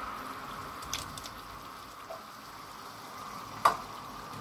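Chicken and chopped tomatoes frying in oil in a steel karahi: a steady sizzle as the tomatoes go in. There are a few light clicks about a second in and one sharp click near the end.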